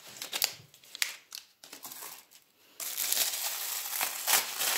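Packaging crinkled and rustled by hand while a small gift is unwrapped: scattered rustles at first, then a dense, continuous crinkling from about three seconds in.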